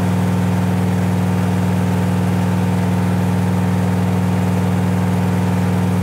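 Sharp ES-X11A front-loading drum washing machine in its spin cycle, the drum spinning at high speed: a loud, steady, deep hum with strong bass and vibration.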